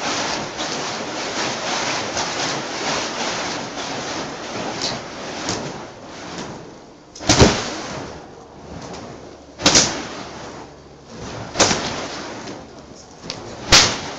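Burning fire whips swung through the air with a continuous rushing of flame. In the second half come four sharp whip cracks, about two seconds apart.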